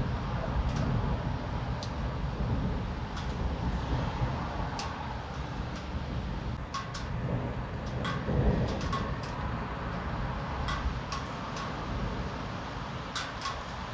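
Low rolling rumble of distant thunder, dying back at the start and swelling again briefly about eight seconds in, with scattered raindrops ticking on a nearby surface.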